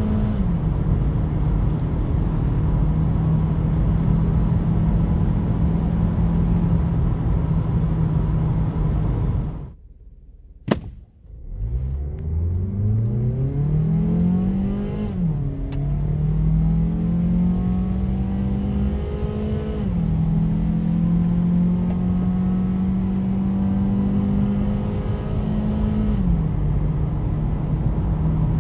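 Mazda CX-3's four-cylinder engine under full-throttle acceleration, heard from inside the cabin, its revs rising and dropping at each upshift of the six-speed automatic. About ten seconds in there is a short break of near silence with a click, after which the engine climbs again from low revs, with upshifts roughly five, ten and fifteen seconds later.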